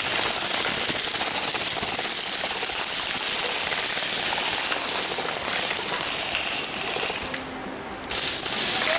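Airsoft electric guns firing long full-auto bursts close by, a rapid continuous rattle that breaks off briefly near the end and then starts again.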